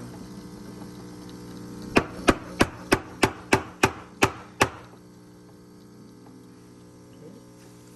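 A quick run of about nine sharp knocks, roughly three a second, over a steady low hum.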